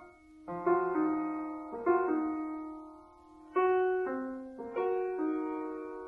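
Background music: slow, sparse piano notes, struck a few at a time and left to ring and fade.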